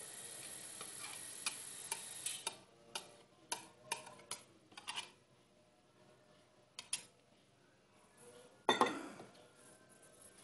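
A wire whisk clicking and tapping against a plastic cup and a glass mixing bowl as a thick yeast starter is scraped out onto flour. A soft hiss fills the first couple of seconds, a run of sharp clinks follows, and one louder knock with a short ring comes near the end.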